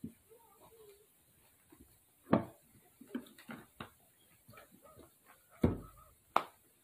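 A few sharp knocks and a dull thump about two-thirds of the way in, with small clicks and faint rustling between them.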